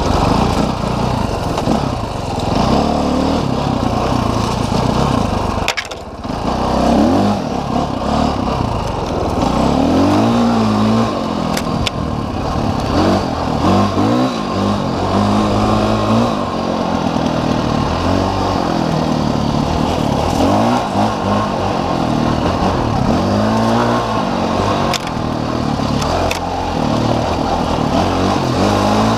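Dirt bike engine under way, its pitch climbing and falling again and again as the throttle is opened and shut. About six seconds in the engine drops away for a moment before picking up again. Short knocks come through now and then.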